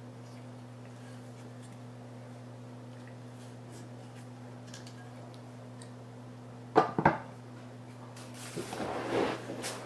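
A graphics card fitted with a full-cover copper water block is set down on a table: two sharp knocks close together about seven seconds in, then a short stretch of rustling and clatter as it is handled. A steady low hum runs underneath.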